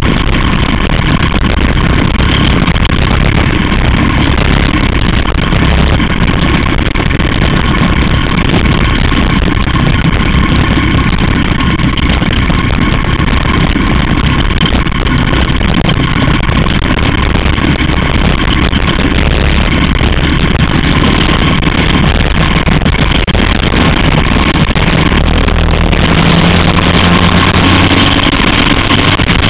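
Caged oval racing kart's small engine heard onboard, running loud and steady at speed around the track. About 26 seconds in the engine note changes, with a lower hum coming through.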